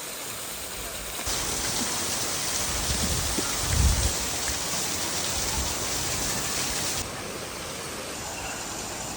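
Rushing stream or river water, a steady hiss that turns louder and brighter for several seconds in the middle, with a brief low rumble about four seconds in.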